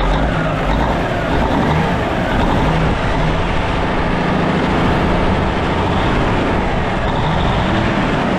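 Caterpillar diesel engine of a Kenworth truck idling steadily, heard up close in the engine bay. It runs evenly, which the owner calls running sweet, just after a seized alternator was freed.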